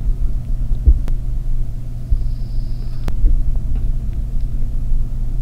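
A steady low rumble with a couple of faint sharp ticks.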